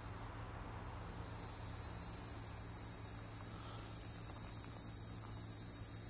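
Hieroglyphic cicadas (Neocicada hieroglyphica) singing: a steady, high-pitched buzz that jumps louder a little under two seconds in and then holds.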